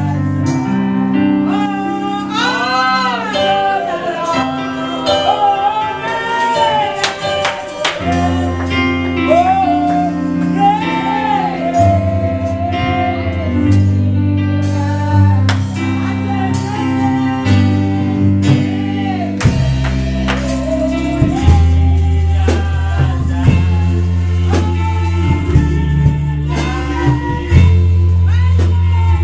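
Live gospel music: sustained keyboard and bass chords with a wavering voice-like melody line over them and frequent sharp percussion hits.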